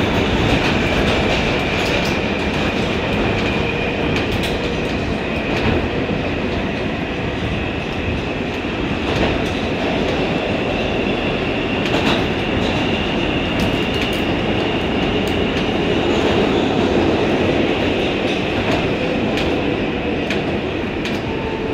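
Kawasaki R142A subway car running through a tunnel, heard from inside the car: a steady rumble and rattle of wheels on rail, with occasional sharp clicks and a faint high whine held throughout.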